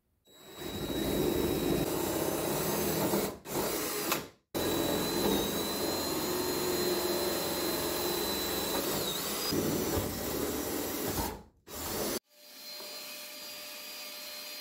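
DeWalt cordless drill running under load, boring oversized 3/8-inch holes for deck hardware, with a steady motor whine that dips briefly a couple of times; the sound is cut off abruptly twice. Near the end a quieter, steady vacuum cleaner runs as the drilling chips are sucked up.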